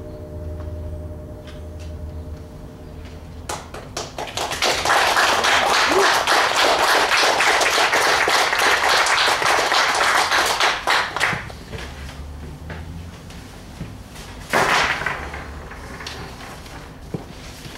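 Sine-wave oscillator drone: several steady tones over a low tone that pulses on and off. About three and a half seconds in, a loud dense crackling noise takes over for around seven seconds. A shorter noisy burst follows near the end, with the low pulsing tone sounding again.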